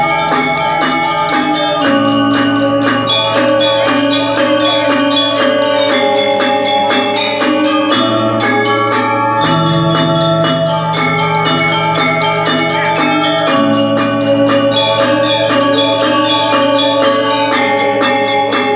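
Music: an ensemble led by ringing bell-like metal percussion plays a melody over held bass notes, with quick, steady strikes throughout.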